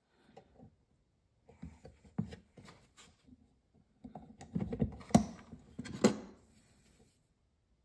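Scattered light clicks and knocks of small brass handle pins and a wooden handle scale being handled and set against a knife tang on a wooden workbench, with two sharper knocks in the second half.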